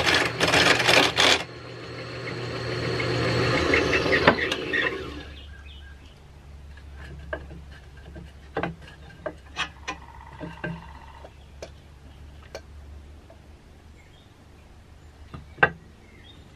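Turning tool cutting a wooden handle spinning on a wood lathe. A few short, loud scraping cuts give way to one longer cut that swells and then fades out about five seconds in. After that there is only a low hum with scattered clicks and taps of tools being handled.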